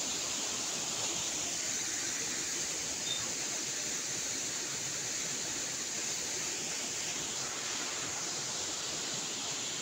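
Waterfall pouring into a rock pool: a steady rushing hiss of falling water.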